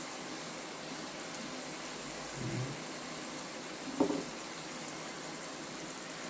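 Steady sizzle of sausage slices and cauliflower frying in a pan, with a soft low bump about two and a half seconds in and a short sharp knock about four seconds in.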